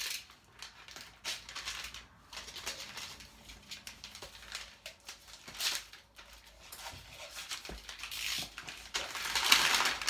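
Kraft paper and cardboard packaging being opened: short scratches and rustles as the tape on a small cardboard box is worked open with a pen-like tool, then denser paper crinkling near the end as a kraft paper bag is handled.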